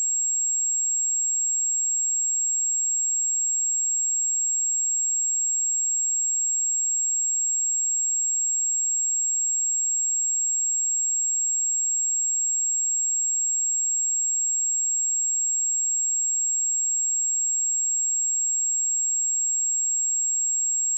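A steady, continuous 7588 Hz sine-wave test tone: a single high-pitched pure tone held at an even level throughout.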